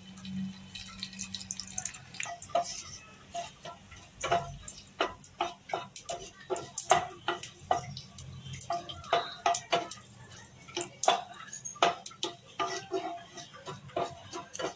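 Whole cumin seeds and dried red chillies crackling in hot oil in a nonstick kadai, with a spatula stirring and scraping against the pan. There are irregular sharp clicks and pops throughout, thickest after about two seconds in.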